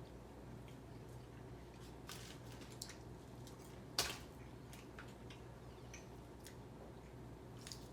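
Faint small handling sounds: scattered soft clicks and rustles, with one sharper tap about four seconds in, over a low steady hum.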